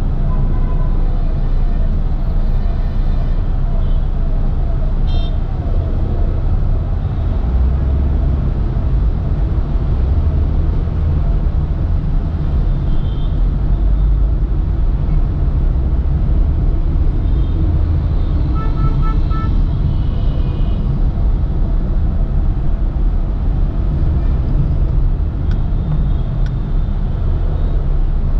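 Dense city traffic heard from a slow-moving vehicle: a steady low rumble of engines and road noise, with vehicle horns honking several times, most clearly a quick series of short beeps just past the middle.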